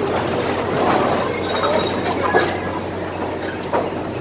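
Bumper cars running around a rink: a steady rumbling, rattling din of the cars rolling and their overhead contact poles, with a couple of sharp knocks about two and a half seconds and about three and three-quarter seconds in.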